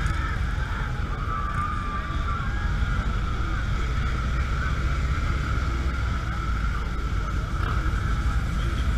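Motorcycle engine running steadily under way, a continuous low rumble, with wind on the microphone.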